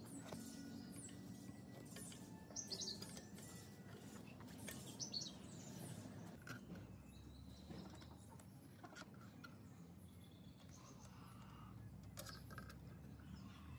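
Quiet background with faint bird chirps scattered throughout, a few light clicks and a low steady hum underneath.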